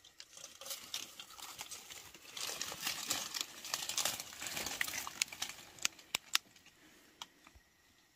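Dry leaves and grass crackling and rustling as hands rummage through leaf litter and undergrowth, loudest in the middle, with a few sharp clicks about six seconds in before it dies away.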